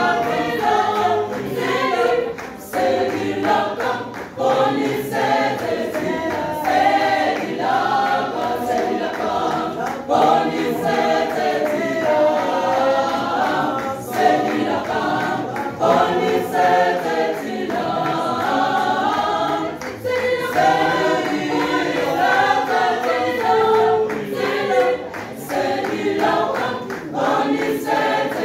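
Mixed church choir of women and men singing a cappella in harmony.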